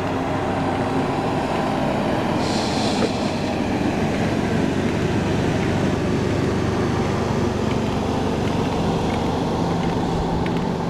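Steady motor vehicle engine and road noise, running evenly, with a brief hiss about two and a half seconds in.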